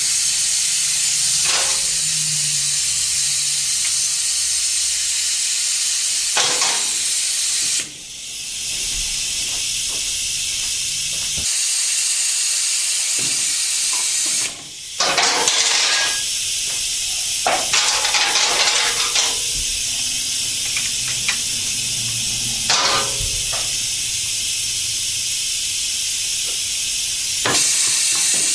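Pneumatic brake bleeder running on shop compressed air, drawing clutch fluid out through the slave cylinder's open bleeder valve: a steady hiss of air through the tool. The hiss drops out briefly twice, about eight and fifteen seconds in, with a few clicks and knocks over it.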